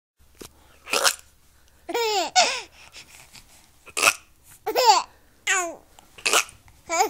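A baby laughing in short, high squeals that fall in pitch, traded back and forth with brief, sharp breathy noises.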